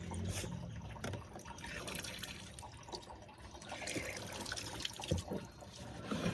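Faint trickling and dripping water, with small irregular drips.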